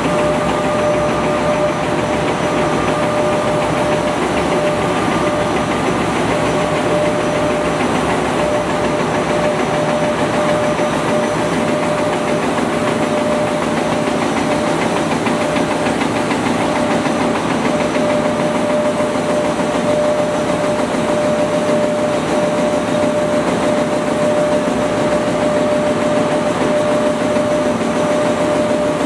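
Pull-up diaper making machine running at production speed, about 403 pieces a minute: a steady, fast, dense mechanical rattle with a constant whine running through it.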